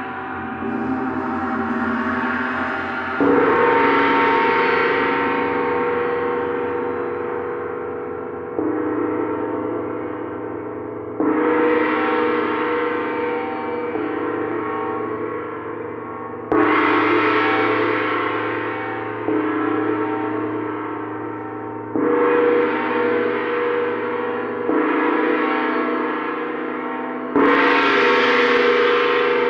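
Large planetary gongs, tuned to the frequencies of the planets, being struck about every three to five seconds. Each stroke sets off a fresh surge of shimmering overtones that fades slowly into a continuous ringing wash, which never dies away between strokes.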